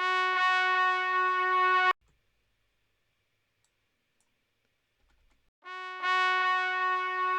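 A single held note from a software instrument in a DAW, played back twice at one steady pitch. Each lasts about two seconds and stops abruptly; the second starts softly, then jumps louder.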